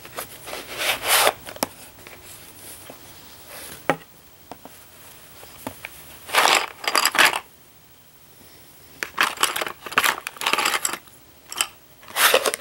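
Hands handling a red metal pencil tin: a crumpled cloth rustling as it is pulled out, and the tin's lid and the pencils inside clicking and rattling, in several short bursts with pauses between.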